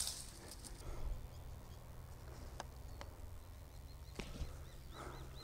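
Quiet countryside evening ambience with a few soft scattered clicks, and near the end a faint, quick series of high chirps from a small bird.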